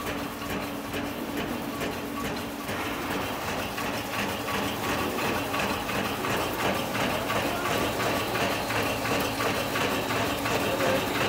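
Chocolate single-twist wrapping machine running, its mechanism clattering in a fast, even rhythm over a steady hum.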